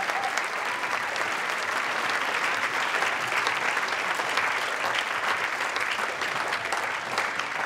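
Dense, steady applause from a crowd, many hands clapping at once.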